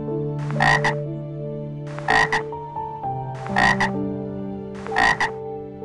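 Frog croaking four times, about a second and a half apart, each croak a short call of a few quick pulses.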